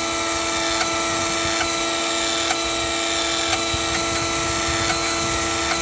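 Imarflex Super Blender motor running steadily with its glass jar empty, with a faint tick about once a second.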